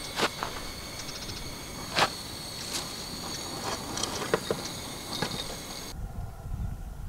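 Steady high-pitched insect chirring with several sharp clicks. About six seconds in it cuts abruptly to a low wind rumble on the microphone.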